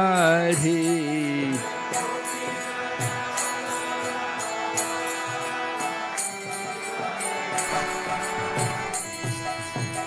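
A man's voice holds the last syllable of "Giridhari" in a Hindu devotional chant, ending about a second and a half in. Instrumental accompaniment of steady held notes and light jingling carries on alone until the next sung line.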